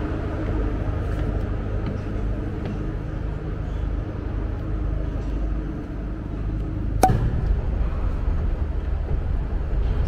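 A ship's engines make a steady low drone, heard aboard the ferry, with one sharp knock about seven seconds in.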